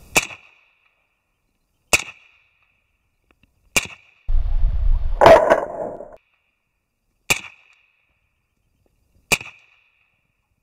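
Six suppressed semi-automatic shots, about two seconds apart, from a CZ-858 rifle in 7.62×39 fitted with an Astur sound moderator. Each is a sharp crack with a short ringing tail. The shot about five seconds in is louder and fuller, with a low rumble around it.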